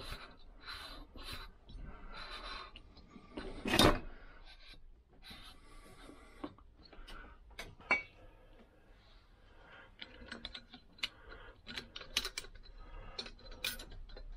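Hand work on a Lambretta engine's cylinder barrel and piston: metal sliding and scraping as the barrel is worked over the piston's new rings, with one loud clunk about four seconds in. Near the end, a run of light metallic clicks from small parts being handled.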